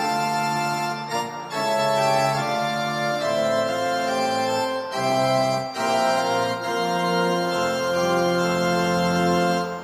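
Mixed choir singing a traditional Romanian song, holding long, steady chords in several parts, with brief breaks between phrases.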